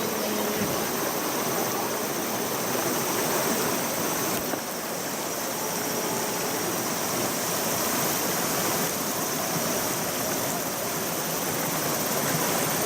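Mountain stream water rushing steadily, an even hiss of flowing water.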